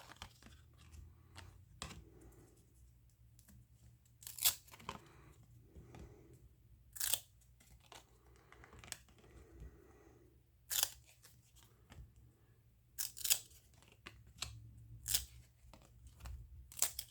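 Baseball card packs and cards being handled: short, sharp tearing and rustling sounds every two to three seconds.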